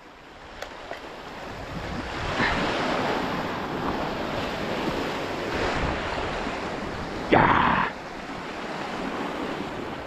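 Sea waves washing against rocks, a steady rushing swell that builds about two seconds in, with wind buffeting the microphone. A short, louder rush about seven and a half seconds in.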